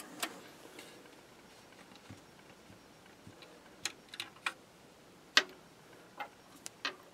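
Small scattered clicks and taps as a miniature glass vacuum tube is pulled from its socket and the tubes on the wooden bench are handled, about eight in all, the loudest about five and a half seconds in. A faint receiver hiss fades out in the first second as the power supply is turned down.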